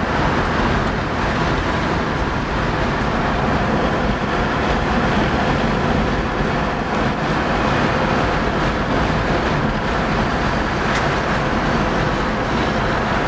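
Steady road noise from a moving car: an even rush that holds level throughout.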